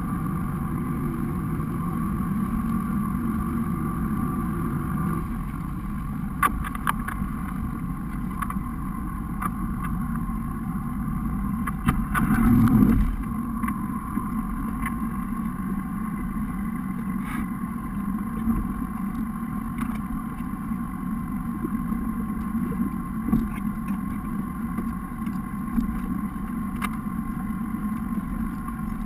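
Rigid inflatable boat's engine running under way, with water and wind rush. The engine's low note drops about five seconds in as the boat slows. A brief louder rush comes near the middle, and there are a few light knocks.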